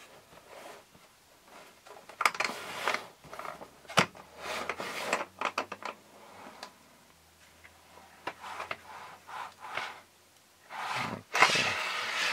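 A black hard plastic carrying case being handled and opened: sharp clicks of its plastic latches and short scrapes and rattles of plastic, the loudest handling noise near the end as the lid comes open.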